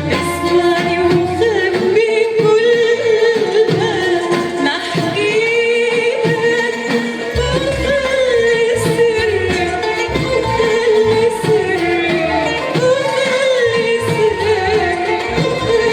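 A woman singing long, ornamented held notes that waver and slide in pitch, accompanied by an Arabic music ensemble.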